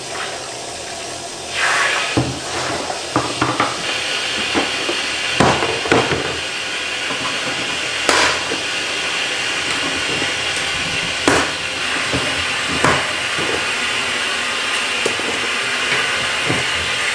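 Steady hiss of water with frequent sharp plastic clicks and knocks as net cups are handled at the plastic grow ports of an aeroponic tower. Near the start, water is poured from a plastic jug into the tower's reservoir.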